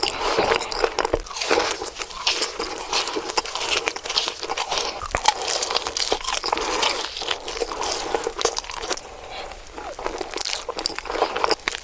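Close-miked eating: a person takes crunchy bites of fast food and chews, with many crisp crackles and crunches following one another irregularly.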